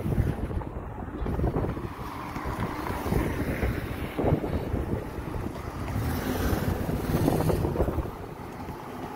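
Wind buffeting the microphone in uneven gusts over the low rumble of street traffic.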